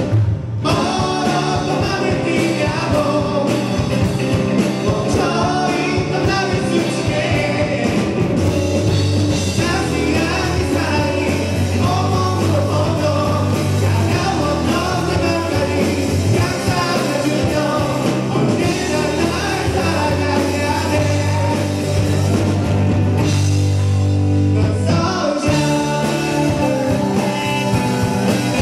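Live rock band playing with a lead singer: vocals over drums, bass, guitars and keyboard, loud and continuous.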